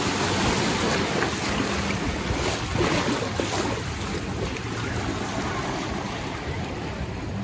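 Water rushing and churning along a river-raft ride's channel as the raft floats through: a steady, unbroken rush of noise.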